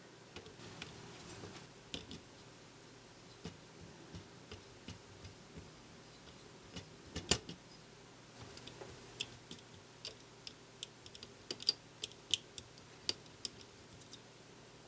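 Small screwdriver and metal parts of a camcorder video head drum clicking and ticking as the screws at the top of the drum are undone. The faint clicks come scattered, with a sharper one about seven seconds in and more frequent ones near the end.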